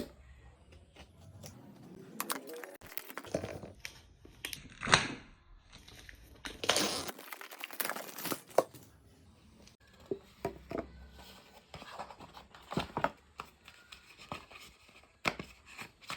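Smartwatch box being unboxed by hand: packaging tearing, crinkling and rustling in irregular bouts, with scattered sharp clicks and knocks of the box being handled.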